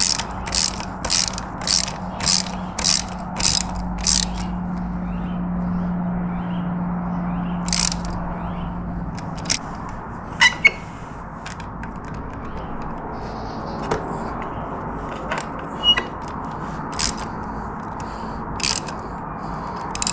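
Ratchet wrench clicking in quick even strokes, about three a second, as the bolts of a shift shaft brace are tightened. The ratcheting stops about four seconds in, followed by scattered metallic clicks and clinks over a low steady hum that fades out about nine seconds in.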